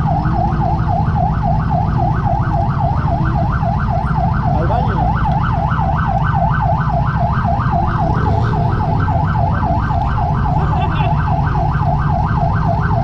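A siren on a fast yelp, sweeping up and down about three to four times a second, over the steady low rumble of a motorcycle engine.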